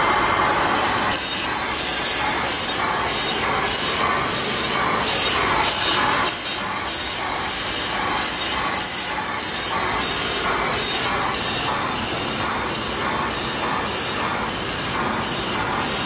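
Inline PCB router (Genitec GAM330AT) depaneling mobile power adapter boards: the high-speed spindle cuts through the boards' tabs one after another. Each cut gives a short, loud, high-pitched burst, about one every 0.6 s from about a second in, over a steady machine noise.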